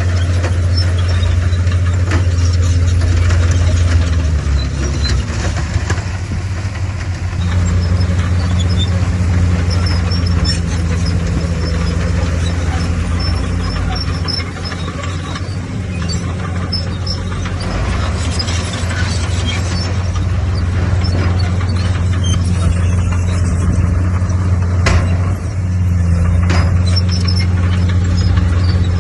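Bulldozer's diesel engine running steadily under load, its pitch shifting a few seconds in and again near the end, with a sharp knock shortly before the pitch shifts again.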